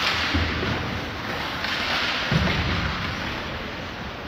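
Ice hockey play in a nearly empty rink: skate blades scraping and hissing across the ice, with two dull thuds, one about half a second in and one a little past two seconds.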